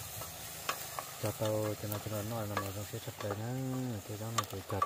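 Food frying in a pan while a utensil stirs it, with a few sharp clicks of the utensil against the pan.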